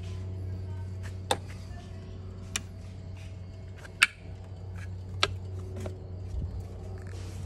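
Bentley Continental GT Speed's twin-turbo W12 idling with a steady low hum after a cold start. Short sharp ticks come through about every second and a bit, the loudest about four seconds in.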